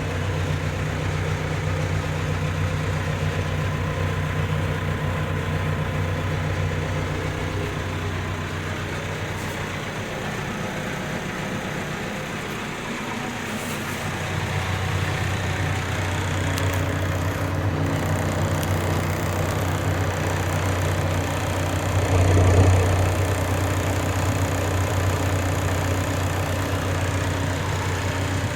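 Terex 860 backhoe loader's diesel engine idling steadily, briefly louder about 22 seconds in.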